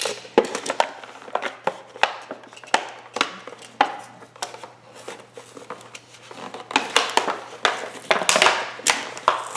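A toy playset's plastic packaging and pieces being handled and pulled out: irregular sharp clicks and taps with some crinkling, coming thicker near the end.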